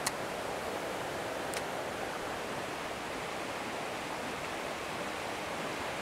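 Steady rushing of a shallow mountain stream over rocks and small rapids, with a short sharp click right at the start and a fainter click about a second and a half in.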